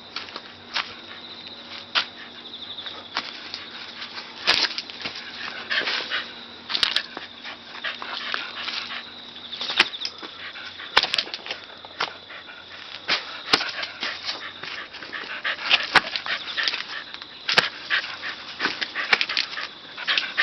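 Shiba Inu dog during a game of chase. Many sharp taps and scuffles come at irregular moments throughout, mixed with the dog's own sounds.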